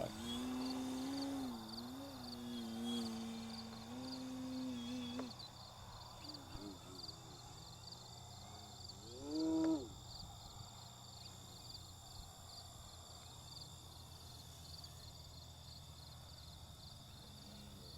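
An RC Extra 300 aerobatic plane's motor and propeller drone steadily for about five seconds, the pitch wavering with the throttle. About nine seconds in comes a short whine that rises and falls. Crickets chirp steadily throughout.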